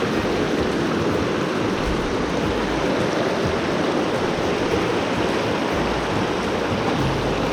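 Mountain trout creek rushing over rocks through pocket water and small rapids: a steady, loud rush of water.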